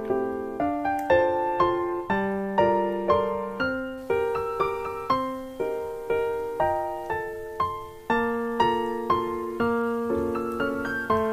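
Background piano music: a light melody of struck notes, each one fading away before the next.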